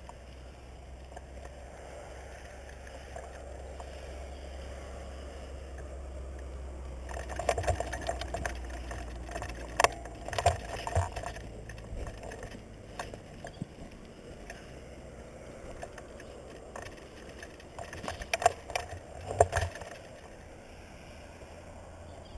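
Movement and handling noise on a body-worn action camera: a steady low rumble with rustling, and scattered sharp clicks and knocks that bunch together about a third of the way in and again near the end.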